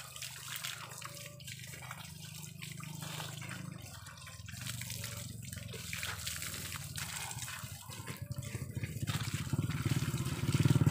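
Water running from a garden hose, splashing over a person and then onto potted plants and the ground. Near the end a low engine sound grows louder.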